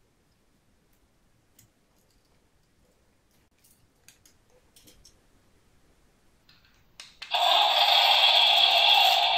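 Faint clicks of small plastic parts and wire connectors being handled. About seven seconds in, loud background music starts abruptly.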